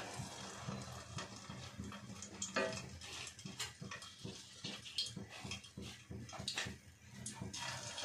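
Egg-coated potato-and-egg koftas frying gently in medium-hot ghee in a pot: soft sizzling with scattered crackles and pops as more balls are added to the fat.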